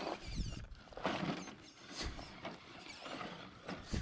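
Element RC Enduro Trail Walker crawler driving down off a rock onto gravel: a small electric motor and gears whining, with tyres scraping and crunching over stones and a few low thumps.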